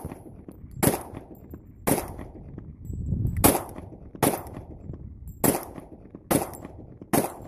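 A Glock 23 .40-calibre pistol being fired in a slow string of about eight single shots, roughly one a second, each with a short ringing echo. The pistol keeps firing shot after shot.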